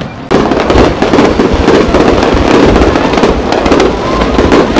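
Aerial firework shells bursting in a loud, dense barrage of overlapping bangs and crackling. It kicks in sharply a moment after a brief lull at the start.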